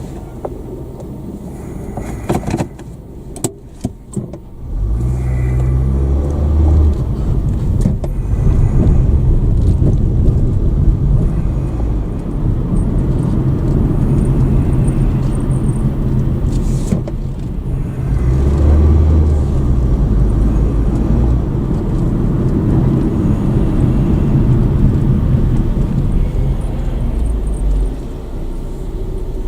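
Car engine and road noise heard from inside the car: quieter at first with a few sharp knocks, then about five seconds in the car pulls away, and the low rumble swells twice as it accelerates while driving on.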